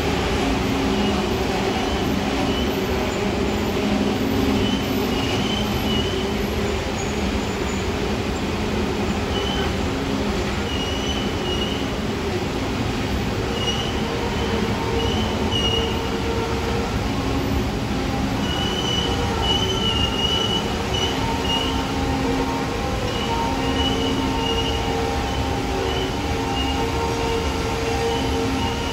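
Coal train's hopper cars rolling past in a steady rumble, with short high-pitched wheel squeals every few seconds.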